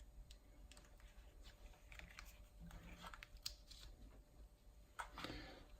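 Faint, scattered small clicks and rustles of hand sewing: needle and thread being worked through the corner of a thin card-and-tape gimmick and pulled tight, with a slightly louder cluster of handling noise about five seconds in.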